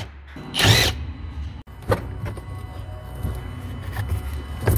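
A cordless driver whirs in one short burst about half a second in, spinning out the screw of a worm-gear hose clamp on a truck's intake air duct. Small clicks of handling follow over a steady low hum.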